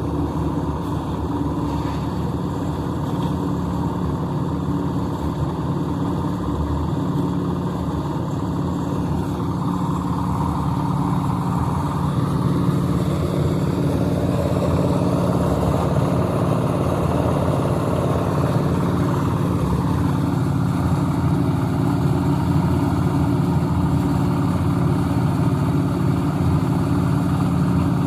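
Portable concrete mixer's small engine running steadily, with a churning noise over it that shifts and grows a little louder about halfway through.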